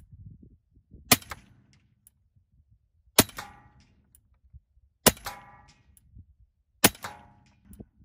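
Western Airguns Sidewinder .30 calibre semi-automatic PCP air rifle firing four shots about two seconds apart, each a sharp crack. The last three are each followed by a short metallic ringing.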